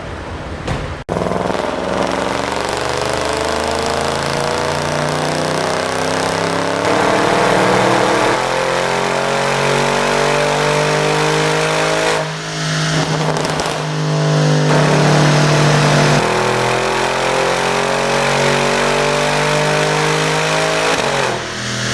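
Audi S6's 4.0 TFSI twin-turbo V8 pulling hard, its note climbing steadily in pitch over long stretches. It drops back briefly about twelve seconds in and again near the end.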